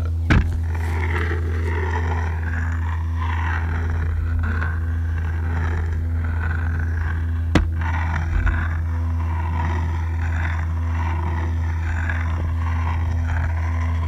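Live experimental electronic music played from a laptop and mixer: a steady low drone with a held tone above it and slowly shifting, wavering textures. Sharp clicks cut through near the start and about halfway, with a couple more soon after.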